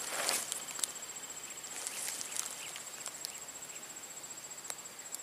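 Insects trilling steadily at a high pitch, with a few faint, sharp clicks scattered through.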